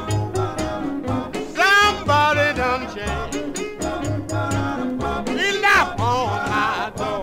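Rhythm and blues vocal-group record playing, with a steady drum beat, a bass line and a lead part that swoops upward twice.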